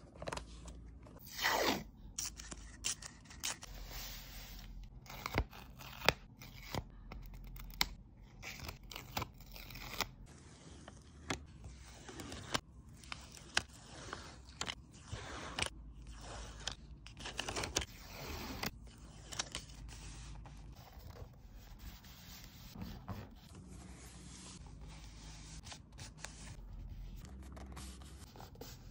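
Close-up paper-crafting sounds: paper rustling and scraping as sticker backing is peeled off photo cut-outs and pressed onto a journal page, with many small sharp taps and clicks and a few longer swishes.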